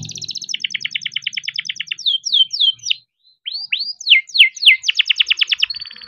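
Young male canary singing a rolling song: fast trills of rapidly repeated high notes, then a few falling and rising swoops, a short break about three seconds in, and another fast trill.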